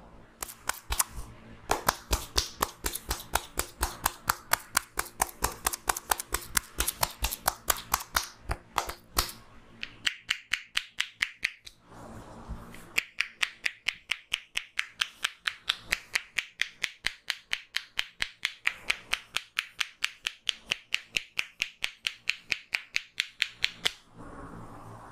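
Percussive hand-clapping massage: the barber's hands strike the client in quick, sharp, even slaps, about five or six a second. The slaps break off for about three seconds in the middle, then start again.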